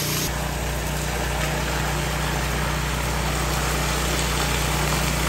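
An engine or motor running steadily: a low, even hum under a constant hiss, settling into a steadier drone just after the start.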